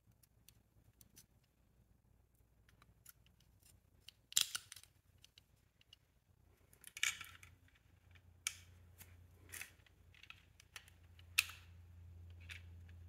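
Faint scattered clicks and clacks of plastic and metal as a chainsaw's black plastic recoil starter pulley and its coiled steel spring are handled and fitted into the orange plastic starter cover, with a few louder clacks about four, seven, eight and a half and eleven seconds in.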